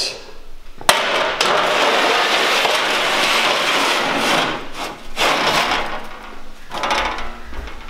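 Steel loading ramp sliding in its steel slider channels under a truck bed: a sharp knock about a second in, then metal scraping on metal for about three and a half seconds, followed by two shorter scrapes.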